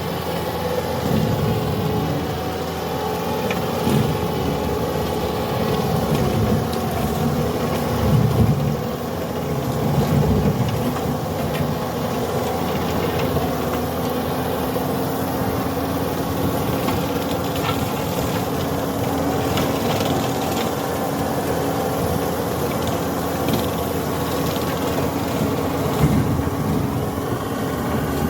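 Skid-steer loader's engine running steadily with its rotary brush mower, with scattered short knocks over the steady drone.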